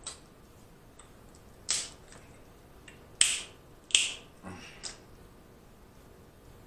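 Snow crab leg shells being cracked and snapped apart by hand: three sharp cracks a second or so apart, with a few softer snaps around them.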